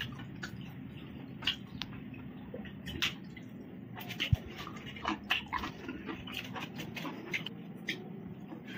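Close-up eating sounds: chewing and wet lip smacks heard as scattered short clicks over a steady low hum, with one sharp tap a little past four seconds in.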